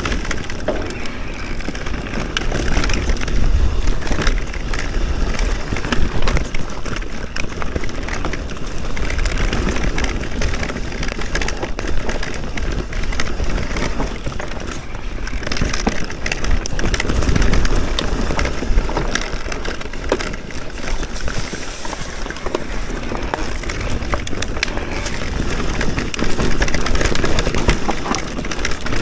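Electric enduro mountain bike riding over a rough trail: a steady crunch of tyres on stones and dirt, broken by many short knocks and rattles from bumps. Bursts of wind rumble on the microphone come and go.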